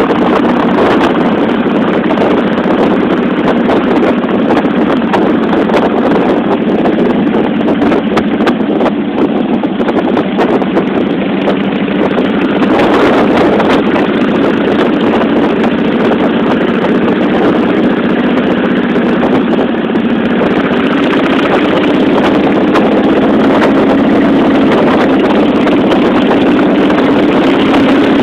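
Cruiser motorcycle engine running steadily at road speed, mixed with wind rushing over the microphone while riding.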